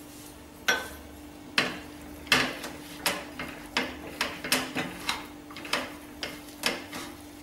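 Steel ladle knocking and scraping against a non-stick frying pan while stirring a thick, sticky date and nut mixture, in a run of sharp strokes roughly two a second.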